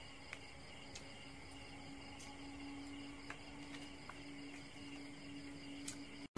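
Faint, steady chirring of crickets, with a low steady hum underneath and a few soft clicks.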